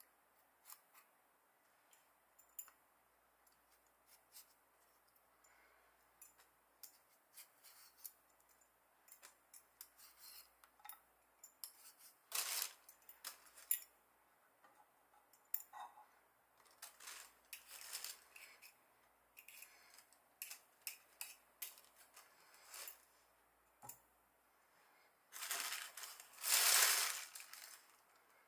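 A potato being peeled with a hand peeler: a long run of short scraping strokes. Near the end comes a louder rustle of a plastic bag.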